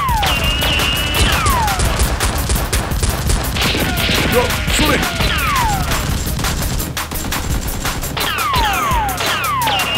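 Rapid automatic gunfire sound effects, dubbed over toy-blaster shooting: dense, continuous volleys of shots, with several falling whistling sweeps mixed in.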